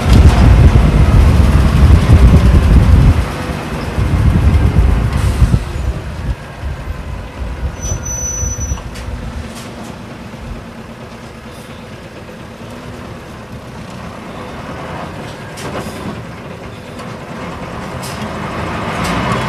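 Isuzu Cubic bus's V8 diesel engine heard from inside the cabin, running loud and deep for about three seconds, then dropping off sharply and settling to a quieter run as the bus coasts, before building again near the end. A brief high thin tone sounds about eight seconds in, with a few light clicks and rattles later.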